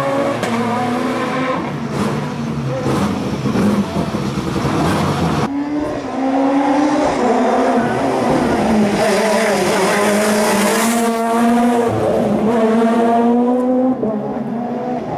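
Rally car engines at full throttle on a closed tarmac stage. First one car revs hard as it pulls away, pitch climbing and dropping with each upshift. After a sudden cut about five seconds in, another car is heard on approach, its engine rising and falling in pitch through the gear changes.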